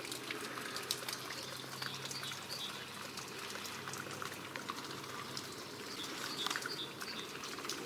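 Trickling and dripping of meltwater on thawing, slushy ground, scattered with small wet clicks, over a faint steady low hum.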